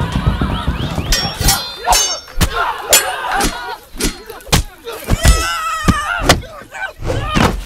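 Staged fight hits: a quick run of sharp punch-and-kick impact thuds, about nine in all, some ringing briefly, with wavering cries or shouts between them.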